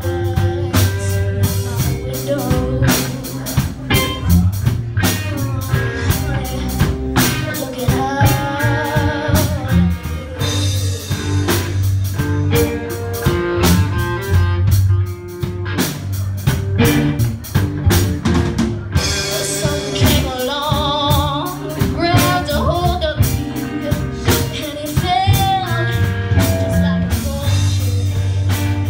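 Live band playing a blues-rock song: a girl sings lead with a wavering vibrato on held notes over electric guitars and a drum kit, with a steady bass line underneath.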